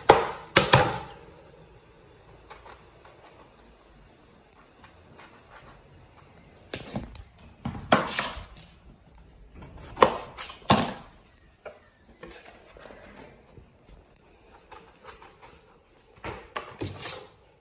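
Kitchen knife chopping through small brinjals onto a cutting board: a few sharp knocks in clusters several seconds apart, with quieter handling in between.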